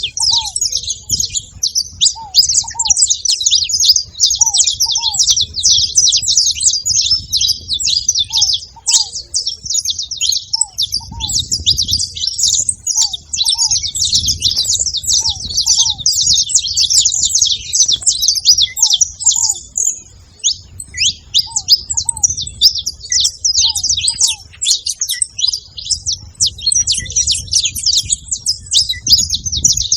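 A flock of saffron finches chirping continuously in a dense, overlapping chorus. A lower call of two short notes repeats every second or two underneath.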